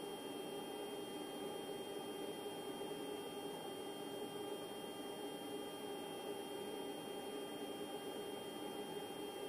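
Steady electrical hum over an even hiss, unchanging throughout.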